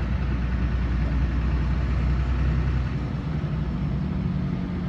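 LiAZ 5292.21 city bus's diesel engine running, a steady low drone whose note shifts about three seconds in.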